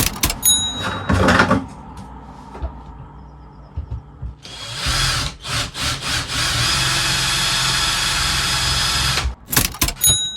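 Power drill running steadily for about five seconds, starting a little under halfway in, with sharp clicks and knocks of handling before and after.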